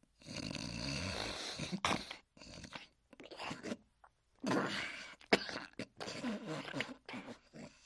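Cartoon snoring: a voiced comic snore, a drawn-out, rasping breath repeated in about six separate bouts. Two sharp clicks come about two and five seconds in.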